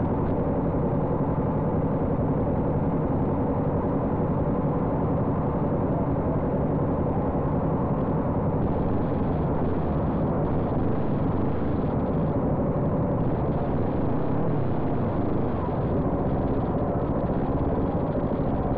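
Sport motorcycle engines idling steadily, the nearest a Kawasaki Ninja 250 parallel-twin.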